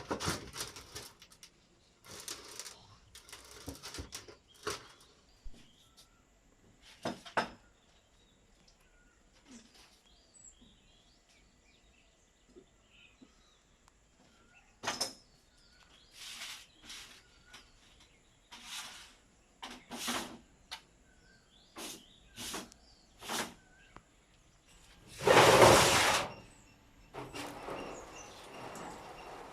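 Intermittent short scrapes and knocks of workshop handling, with one longer, louder scrape about 25 seconds in.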